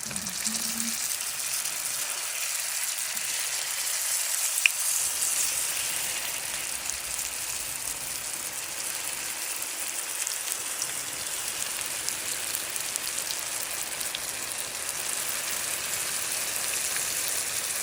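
Banana egg rolls (turon) sizzling in hot oil as they deep-fry, a steady crackling hiss, with one sharp click about five seconds in.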